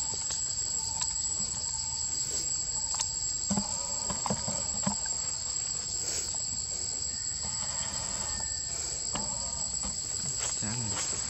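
Steady high-pitched drone of forest insects in two pitches, with a few faint clicks and distant calls in the background.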